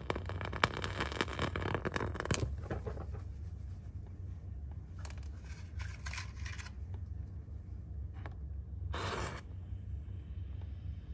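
Burning wooden match crackling for the first couple of seconds, then a few faint scattered crackles. About nine seconds in, a new match is struck with a short scrape. A steady low hum runs underneath.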